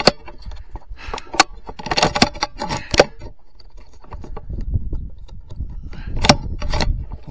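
Handling noise on a rifle fitted with a scope-mounted camera: irregular sharp clicks and knocks with scraping, over a low rumble that grows stronger about halfway through.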